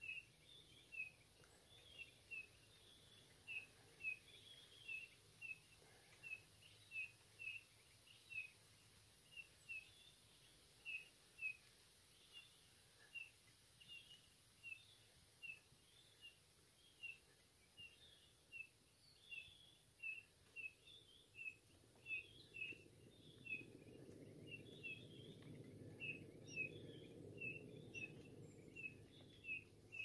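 Pine grosbeaks calling: a steady run of short, high chirps, one or two a second, with a low rumble coming in about two-thirds of the way through.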